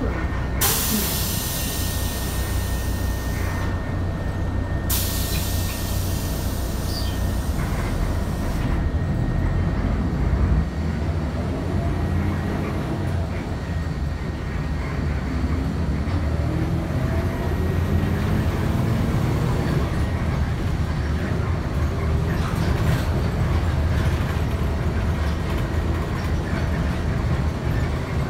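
Cabin noise of a TransJakarta city bus under way: a steady engine and road rumble. Two long hissing sounds come in the first eight seconds, and the engine note climbs in the middle.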